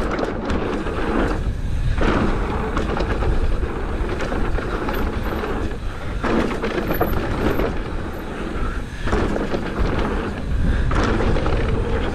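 Mountain bike riding fast down a dirt trail: knobby tyres rolling and crunching over dirt and gravel, the bike rattling over rough ground, with steady wind buffeting the microphone. The tyre noise drops out briefly about three times.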